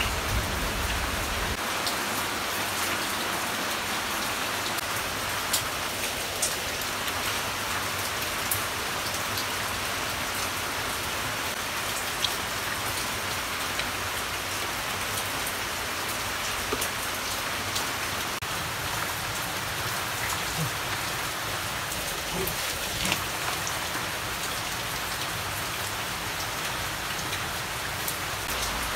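Steady rain falling, an even continuous patter, with a few faint light taps here and there.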